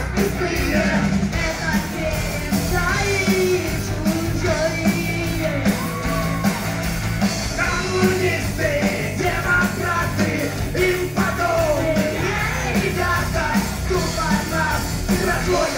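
Live rock band playing loudly through the PA: drum kit, electric guitars and a lead singer.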